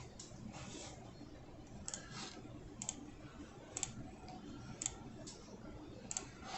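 Faint, sharp single clicks at a computer, about one a second, typical of mouse or key presses while searching the system for a missing DVD drive.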